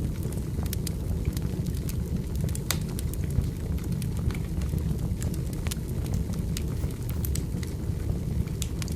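Firewood burning, with irregular sharp crackles and pops over a steady low rumble.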